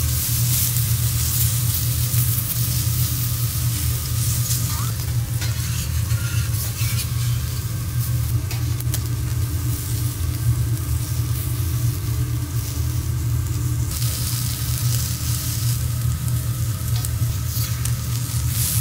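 Seafood sizzling on a teppanyaki steel griddle, with scattered taps and scrapes of metal spatulas. The sizzle eases in the middle and picks up again about fourteen seconds in, over a steady low hum.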